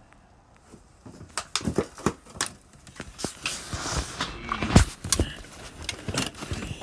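A cat gives a short meow, which the uploader hears as the cat saying its name, "T", among knocks, clicks and rattles of clutter being handled and moved, with one louder thump just before the end.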